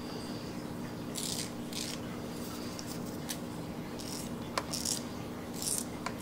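Emery board being drawn across a white-faced capuchin monkey's fingernails in four short, scratchy strokes, with a few light clicks, over a steady low hum.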